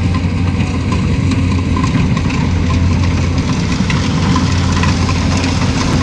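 Farm machinery engines running steadily, a constant low hum: a rice combine harvester at work in the field and a small tractor idling nearby.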